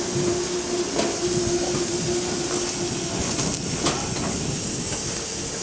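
Norfolk & Western 611, a J class 4-8-4 steam locomotive, under steam: a steady hiss with a constant hum that fades about three seconds in, and a few light clicks in the second half.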